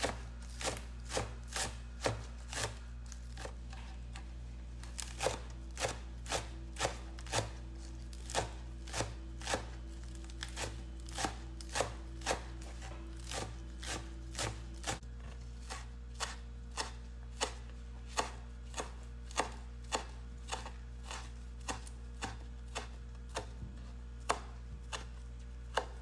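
Chef's knife chopping green onions and parsley on a wooden cutting board: the blade knocks on the board in an even rhythm of about two strokes a second, over a steady low hum.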